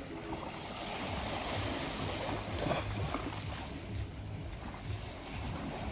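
High-tide waves on the River Thames washing and splashing over stone riverside steps onto the flooded walkway, a continuous rushing of water with a low, uneven rumble beneath it.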